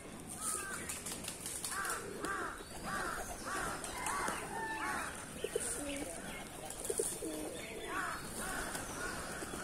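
A flock of domestic pigeons fluttering and flapping their wings as they gather at scattered grain. Over this, a bird chirps repeatedly, about two calls a second, with a pause in the middle.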